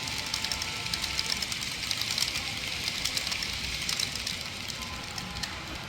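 Model train running on the layout track, a quick run of light clicks, several a second, that thins out about four seconds in, over a faint steady hum.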